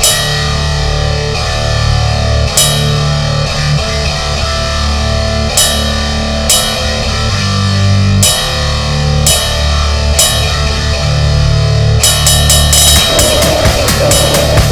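Goregrind music: distorted guitar and bass riffing over a drum kit, with cymbal crashes every second or two. About twelve seconds in, the cymbals switch to rapid hits.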